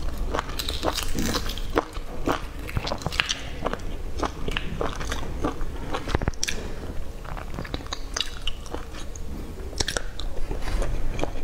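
Close-up crackling and clicking of boiled eggshells being cracked and peeled by hand, followed near the end by biting and chewing of the peeled egg.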